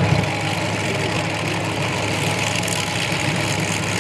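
Several demolition derby cars idling together: a steady, loud low rumble of their engines.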